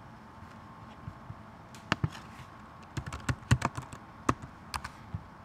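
Computer keyboard typing: two keystrokes about two seconds in, then an uneven run of about ten keystrokes as a short username is typed.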